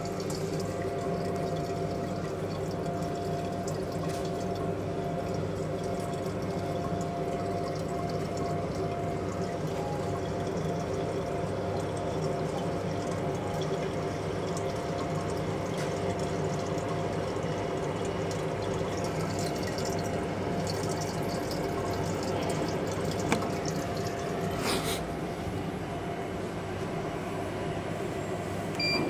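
A laser cutting machine running: a steady hum with a few constant tones under a hiss, with a few faint clicks.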